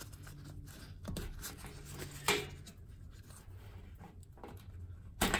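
Wires and their plug connectors being pulled out of an HVAC blower motor's terminal block by a gloved hand: faint rubbing and light clicks, with a clearer click about two seconds in and a louder one near the end.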